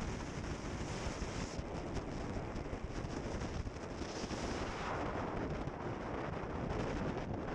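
Wind buffeting the microphone on a fast-moving boat, over a steady rush of engine and water noise.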